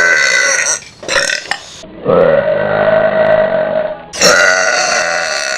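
A person burping: long, drawn-out burps one after another. One ends just under a second in, two short ones follow, then a steady burp of about two seconds, and another begins just after four seconds.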